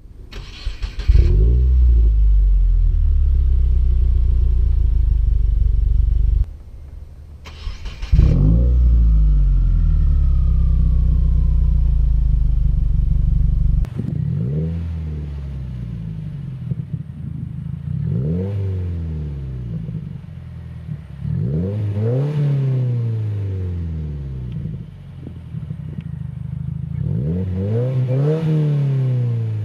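Subaru WRX's 2.0-litre turbocharged flat-four exhaust through an ETS cat-back system with resonator: the engine cranks and starts, runs at a steady high idle, shuts off and is started again, then settles to a lower idle and is blipped about five times, each rev rising and falling.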